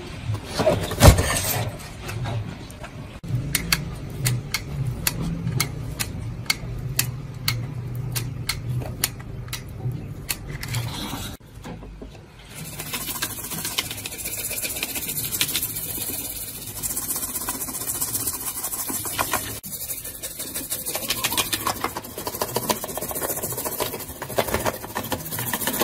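Small brush scrubbing the wetted solder side of an amplifier circuit board to clean off corrosion, a rapid scratchy rubbing that starts about halfway through. Before it come scattered clicks and knocks from the board being handled.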